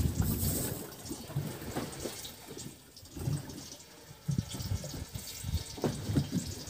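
Water sloshing against the hull of a small fishing boat in irregular splashes.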